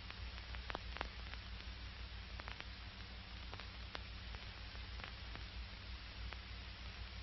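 Soundtrack noise of an old film between lines of narration: a steady hiss over a low hum, with scattered faint crackles and pops.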